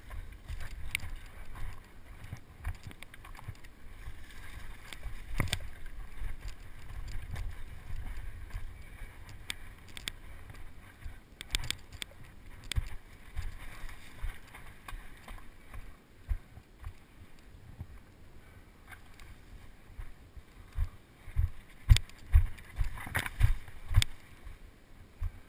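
Mountain bike riding down a rough dirt and stone trail: low wind rumble on the microphone, with the bike rattling and clicking over the ground. A run of loud knocks from hard bumps comes near the end.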